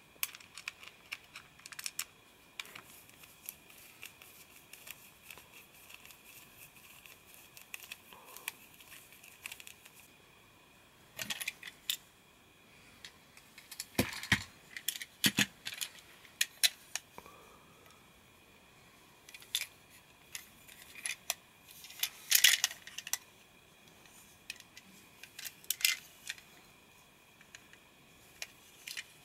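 Small clicks, taps and light rattles of a plastic Plarail 500 Series Shinkansen toy train being unscrewed with a small screwdriver and handled, in scattered clusters with pauses between them.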